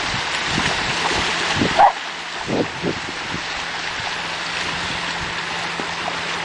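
Steady wash of surf and wind noise at the water's edge, with a short dog yip about two seconds in.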